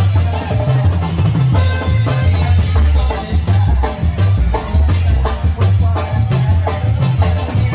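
Live tamborazo band playing a cumbia: drums keep an even, steady beat over a heavy bass line.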